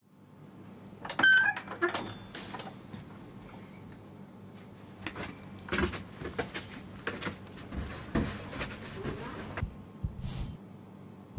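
Handling noises of someone moving about in the dark: a loud clatter with a short squeak about a second in, then scattered knocks, clicks and rustles over a faint steady hum.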